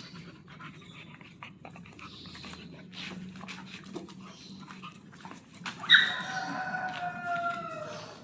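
A dog whining: one long pitched whine, falling slightly in pitch, starts about six seconds in, after several seconds of faint scuffling clicks.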